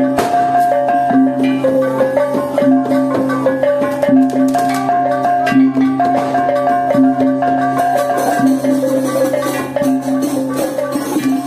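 Gamolan, the Lampung bamboo xylophone, playing as music: a struck-note melody over a low note repeated at a steady beat.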